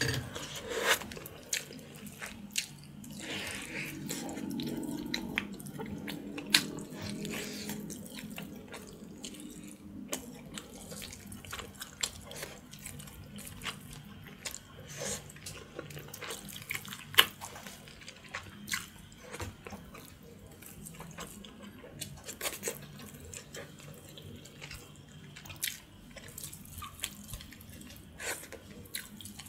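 Close-miked wet sounds of boiled pork backbone being pulled apart by hand, dripping with broth, with many short sharp clicks and smacks scattered throughout.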